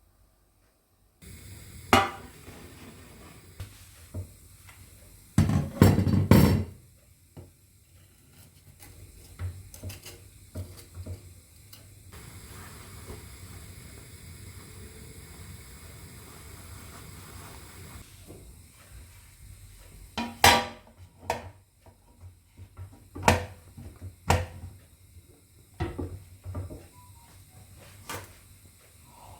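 Kitchen sounds of dishes, pots and utensils being handled: scattered clinks and knocks, with a loud cluster of them about six seconds in and several more later, over a steady low hum.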